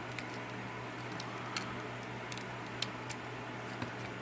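Small scattered clicks of a plastic Transformers action figure's joints and parts as its legs are folded up, about half a dozen light ticks, over a steady low hum.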